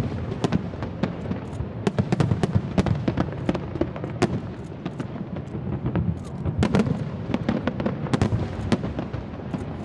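Fireworks going off in quick succession: many sharp bangs and crackles over a continuous rumble, densest about two seconds in and again near the end.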